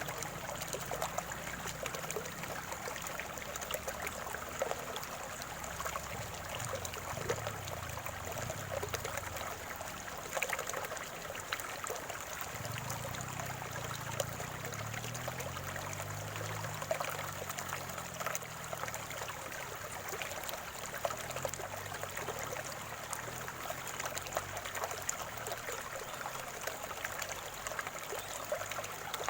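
Spring water trickling and gurgling in a small, steady flow, with many tiny splashes over a soft low burble that swells and fades.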